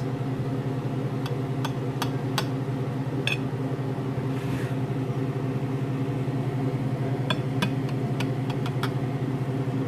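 A knife cutting a frittata on a ceramic plate, with sharp clicks as the blade meets the plate: a few in the first three seconds and several more about seven to nine seconds in. A steady low hum runs underneath.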